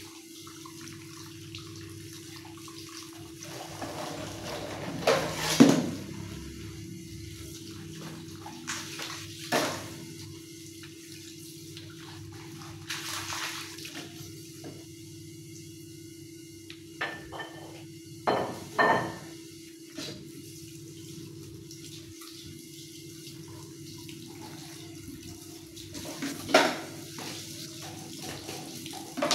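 Tap water running into a stainless-steel sink while dishes are hand-washed, with pots, plates and utensils clattering as they are rinsed and set down. The clatters come several times, loudest about five seconds in and near the end, over a steady low hum.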